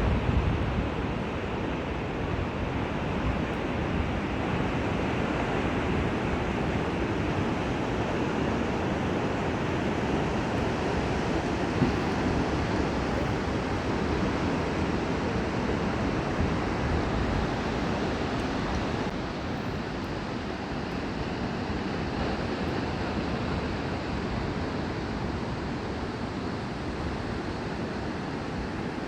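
Ocean surf: a steady wash of waves breaking, with wind rumbling on the microphone.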